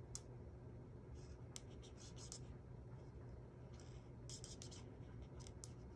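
Faint scratching of an alcohol-based marker's felt tip colouring on a small paper piece, in several short strokes.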